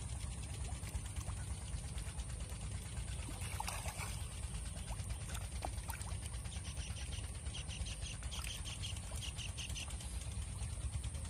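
A shoal of red tilapia splashing and gulping at the pond surface: a dense patter of small splashes and water sounds over a steady low rumble.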